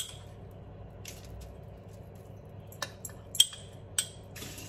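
A metal spoon clinking against small ceramic bowls as black salt is spooned out and tipped onto dry-roasted whole spices: several sharp clinks, the loudest about three and a half seconds in, then a soft grainy rustle near the end.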